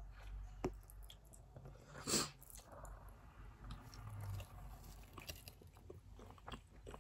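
Close-up eating sounds: a person chewing a forkful of fries, with small wet clicks and smacks throughout and one louder mouth sound about two seconds in.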